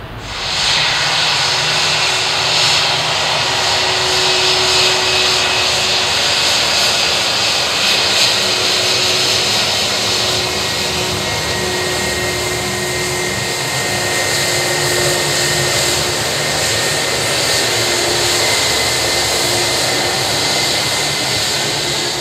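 Airbus A320's jet engines running at taxi thrust: a steady whine over a strong, even hiss.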